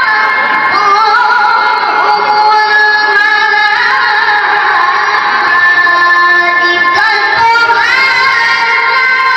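A boy qori recites the Qur'an in melodic tilawah style. His high voice holds long notes with wavering ornaments and glides between pitches.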